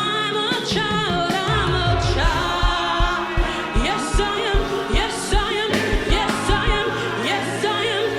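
Gospel praise singing with a live band: voices singing over sustained keyboard chords, with a steady bass drum beat of about two hits a second through most of it.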